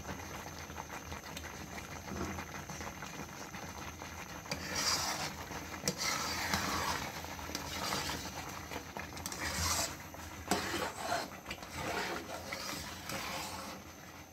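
Metal spatula stirring and scraping thick, fully cooked carrot-and-rice pudding (gajrela) around a wok on the gas flame. Irregular scrapes, with small clicks of metal against the pan.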